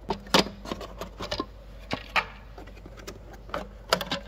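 Plastic snap-on covers of Victron Lynx Power In distribution boards being pried loose with a flat screwdriver and slid off: a dozen or so irregular, sharp plastic clicks and knocks, the loudest about half a second in.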